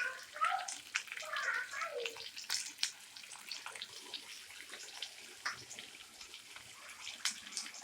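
Onions and green chillies frying in hot oil with tempered mustard and cumin seeds: a steady sizzle with scattered sharp crackles and pops.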